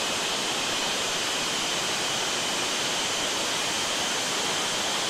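F-15E Strike Eagle's twin jet engines running at taxi power: a steady rush of noise with a constant high whine.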